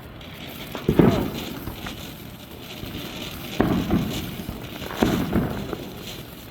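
Fireworks going off: three sharp bangs, about one, three and a half and five seconds in, each trailing off.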